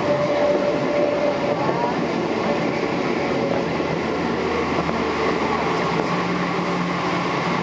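Steady cabin noise inside a Boeing 777 taxiing: the even rumble and hiss of the engines and airflow. A faint steady whine fades out a few seconds in.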